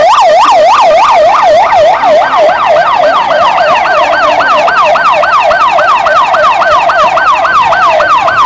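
Ambulance siren on a fast yelp, its pitch sweeping up and down about three to four times a second, loud.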